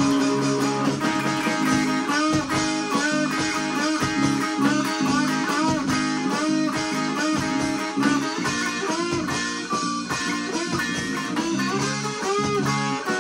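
Multitracked band music led by electric guitar: a melodic guitar line with notes bending up and down over sustained chords.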